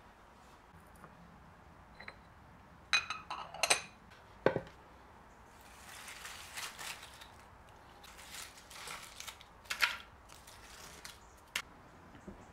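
A few sharp clinks at a small glass jar as dry poppy seeds are tipped into it from a wooden bowl, then a single knock. After that, dry poppy seed heads rustle and crackle on a concrete surface as a hand gathers them, with a couple of light clicks.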